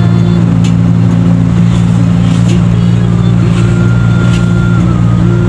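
Steady engine and road drone of a moving car, heard from inside the cabin, with a few faint held tones that step in pitch over it.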